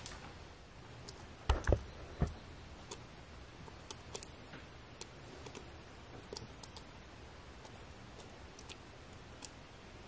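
Wet beeswax cappings being dumped from a plastic tote into a plastic bucket: a few dull thumps about a second and a half to two seconds in, then faint scattered ticks.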